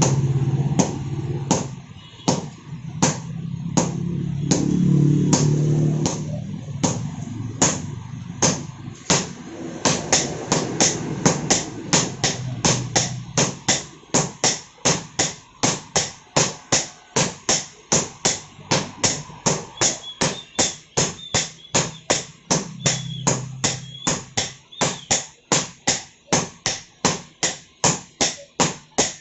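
Sledgehammers striking red-hot steel on an anvil in turn, hand-forging a knife blade held in tongs. A steady run of ringing metal blows comes about two a second at first and quickens to a faster, even rhythm of nearly three a second about ten seconds in.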